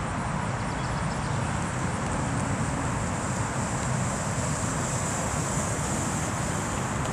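2005 Dodge Dakota pickup truck driving slowly past, a steady low engine and tyre noise with no clear swell as it goes by, mixed with wind on the microphone.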